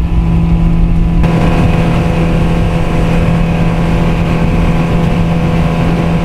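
Yamaha 115 four-stroke outboard motor running at a steady cruising speed, a constant drone with wind rumbling on the microphone. About a second in, a brighter rush of hiss joins it.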